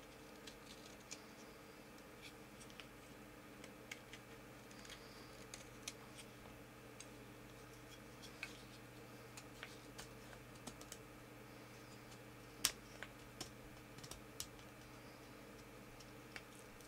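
Knife whittling a small piece of wood: faint, irregular clicks and short scrapes, sometimes a couple a second, with the sharpest click about twelve seconds in, over a low steady hum.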